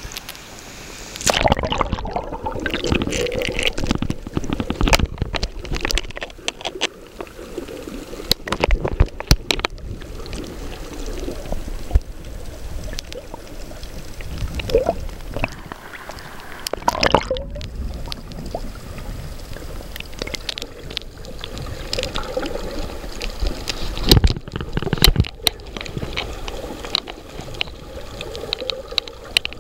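Water sloshing and gurgling around a camera held underwater while snorkeling, with irregular muffled knocks and clicks.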